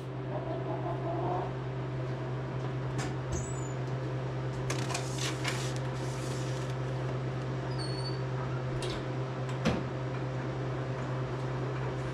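Harvest Right freeze dryer running in pre-freeze with a steady hum, while metal trays are slid into its chamber with a few clinks and rattles.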